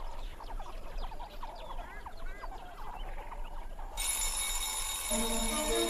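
A group of meerkats calling with many short chirps and peeps. About four seconds in, a steady ringing with several held tones cuts in suddenly and takes over.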